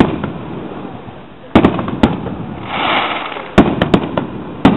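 Aerial firework shells bursting overhead: about half a dozen sharp bangs, irregularly spaced and echoing, with a short hissing crackle between them about halfway through.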